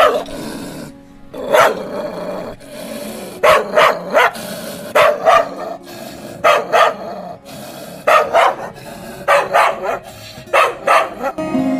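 Dog barking sound effect, an angry dog barking in short runs of two or three barks every second or two.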